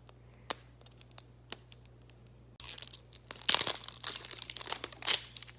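A mystery blind ball's packaging being torn and crinkled open by hand: a few light clicks of handling, then a dense stretch of crinkling and tearing from about halfway in, with two louder rips.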